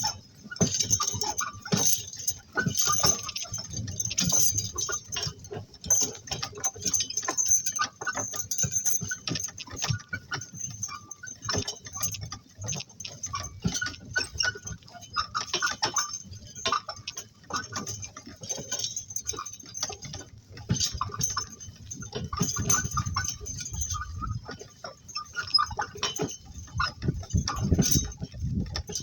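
Two donkeys pulling a work cart: a continuous clatter of hooves, jingling harness and a rattling cart.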